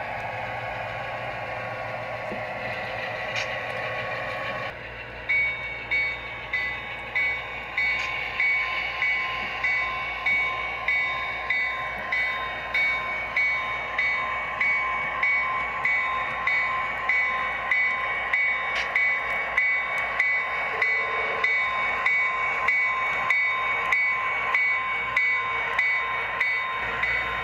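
Model railroad diesel locomotive sound running. About five seconds in, a bell starts ringing steadily, about one and a half strikes a second.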